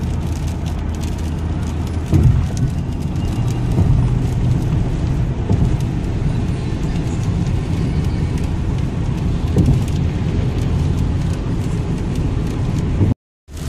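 Steady low road and engine rumble inside a car driving on a wet highway, with light rain tapping on the windshield and a couple of brief louder swells.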